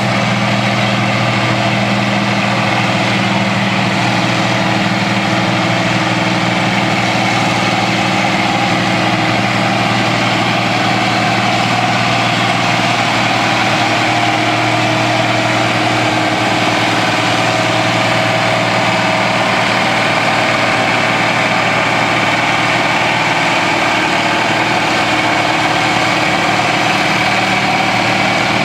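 An engine running steadily at an even speed, without revving.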